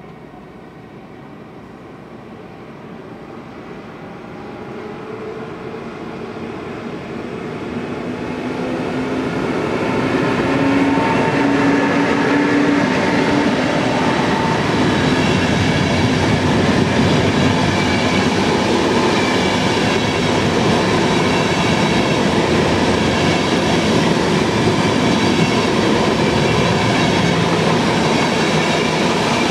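An ÖBB passenger train, an electric locomotive hauling grey intercity coaches, approaching and rolling past close by. It grows steadily louder over about ten seconds, then the coaches' wheels rumble and clatter over the rails at an even level.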